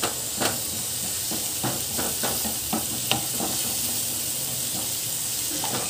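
Onion, chilli and tomato masala sizzling in oil in a non-stick kadhai while a wooden spatula stirs it, with scattered scrapes and taps of the spatula against the pan.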